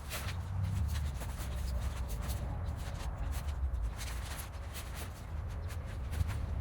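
Irregular rustling, scraping and clicking handling sounds over a steady low rumble.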